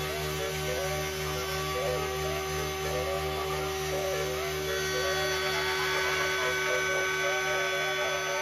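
Small CNC router spindle running with a steady hum and whine while its router bit cuts a profile along the edge of a walnut board. A wavering note rides over the steady hum as the bit moves through the wood.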